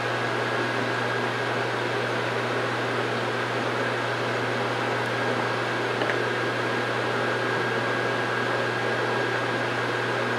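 Steady background room noise: a constant low hum with an even hiss and a faint high tone, like a fan or air conditioner running, with no distinct sounds standing out.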